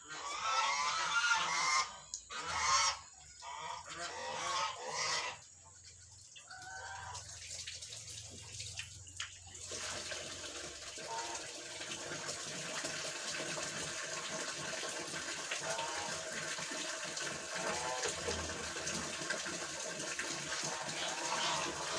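Poultry calling loudly in repeated bouts for the first nine seconds or so. After that, water pours steadily from a pipe into a large tank, with a few faint calls over it.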